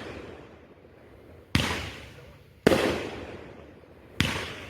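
Consumer aerial fireworks bursting overhead: three sharp bangs, each trailing off in a rumbling echo over about a second.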